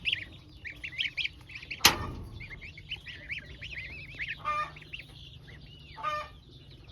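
A flock of farm poultry calling: many quick, high-pitched peeping calls overlapping throughout, with two short, lower honking calls near the end. A single sharp click comes a little under two seconds in.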